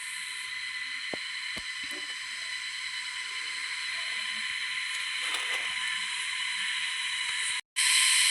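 A chorus of cicadas buzzing steadily, slowly growing louder, cutting out for a moment near the end.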